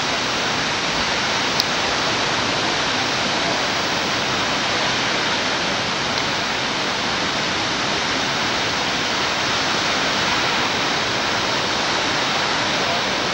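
Shōmyō Falls pouring in heavy snowmelt flood: a steady, unbroken rush of falling water, carrying a very large volume of water.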